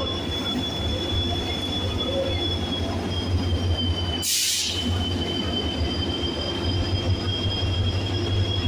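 WDP4 diesel locomotive (EMD two-stroke engine) rumbling as it runs slowly into the platform, with a steady high-pitched squeal over it. A short burst of hiss comes about four seconds in.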